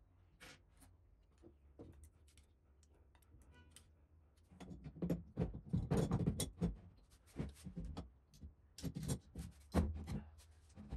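Steel machine parts handled on a workbench: a few faint clicks at first, then from about halfway a busy run of metal knocks, rattles and scrapes as a ball screw and its steel-tube bearing blocks are slid and shifted, with a couple of sharper knocks near the end.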